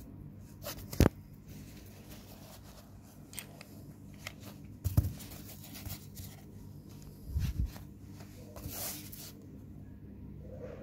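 Handling noises from an Oukitel Bison pod device and its cartridge as they are taken apart and put down. There is a sharp click about a second in, a knock about five seconds in and a few knocks around seven and a half seconds. A short hiss comes near nine seconds, all over a low steady hum.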